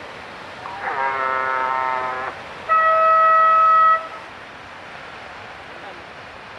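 Surf-contest hooter sounding two blasts. The first is a buzzy blast of about a second and a half; after a short gap comes a louder, cleaner, higher-pitched blast of just over a second. A steady wash of surf and wind noise lies underneath.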